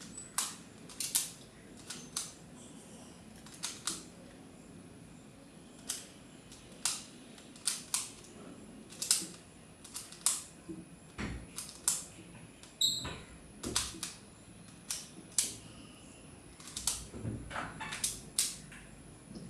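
Plastic Pyraminx puzzle being twisted by hand, its pieces giving sharp clicks at an irregular pace of one or two a second.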